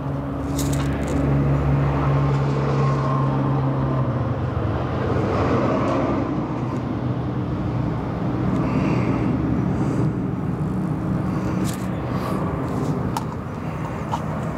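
A motor vehicle engine running steadily, starting abruptly just before this and going on throughout, with a slight change in its tone about four seconds in.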